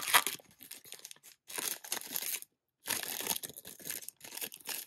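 Foil Panini Select trading-card pack being torn open and crinkled by hand, in irregular crackling bursts with a short break just past halfway.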